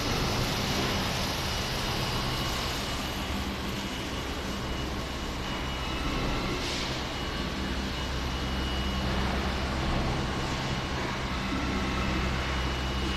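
Steady drone of a package MBR sewage treatment plant's machinery running, a low hum with a thin high whine over it.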